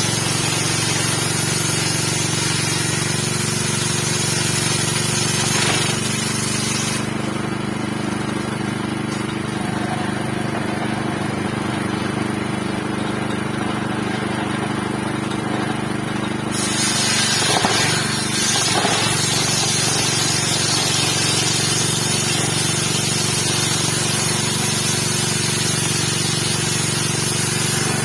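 A 7.5 HP stationary engine driving a 60 cm circular saw blade, running steadily. There is a brief uneven stretch with a slight rise in loudness a little past halfway.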